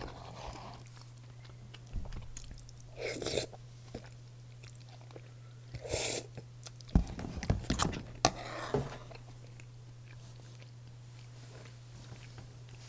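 Close-miked eating sounds: chewing and biting of breaded cheese pork cutlet and rosé spaghetti, with sharp clicks and short wet bursts. They come in clusters through the middle and thin out near the end, over a steady low hum.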